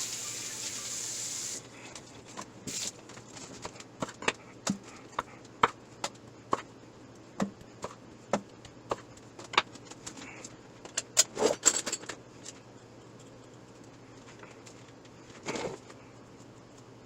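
Kitchen prep handling: scattered sharp clicks and knocks of utensils, containers and items being set down, with a short hiss at the start.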